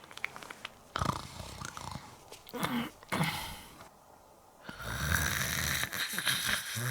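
Comic snoring voiced for a puppet: a few short snorting sounds in the first seconds, then a long, loud snore starting about five seconds in.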